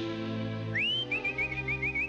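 Cartoon orchestral score with sustained low notes. About halfway in, a whistle swoops upward, then a quick run of short, repeated high whistle notes follows.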